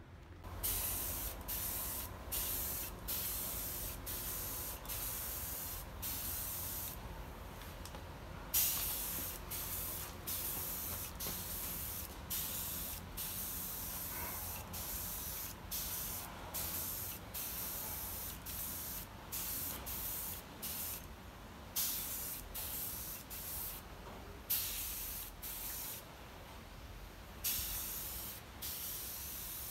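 Compressed-air gun hissing in short repeated bursts, roughly one a second, over the steady low hum of an oil-free air compressor's motor.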